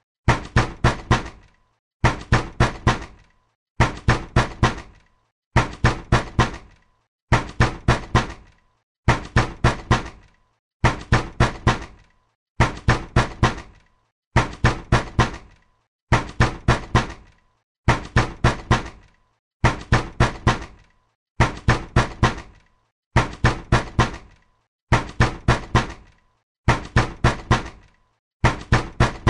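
Angry knocking on a door: hard knocks in quick groups of four, each group repeated about every two seconds with a short pause between.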